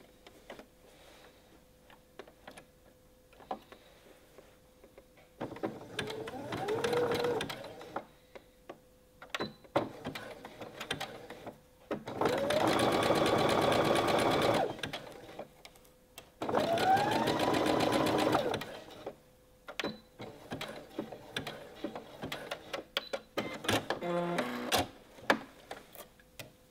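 Electric sewing machine stitching through thick knitted fabric in three short runs, each starting with a rising whine as the motor speeds up, with clicks and handling noises between runs. The machine feeds the heavy knit without straining.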